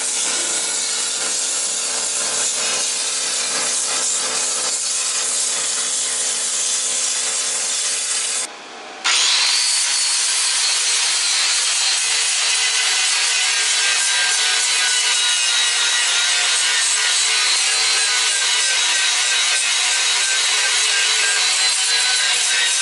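A power tool abrading metal, giving a steady harsh hiss. It breaks off for a moment about eight and a half seconds in, then runs on with a faint high whine over it.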